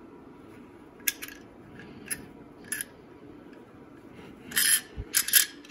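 Small steel parts of a Winchester Model 12 shotgun receiver clicking and scraping as the cartridge cutoff is worked into its recess to seat it flush. There are a few light, separate clicks, then a short metal scrape and rattle about four and a half seconds in, followed by several quick clicks.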